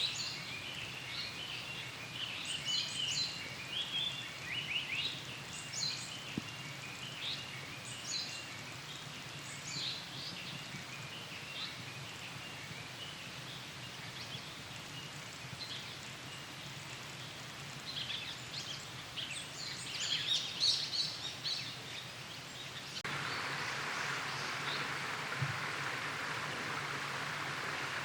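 Japanese paradise flycatcher singing in woodland, short phrases repeated among other bird notes. Late on, a steady rushing noise sets in abruptly and runs under the calls.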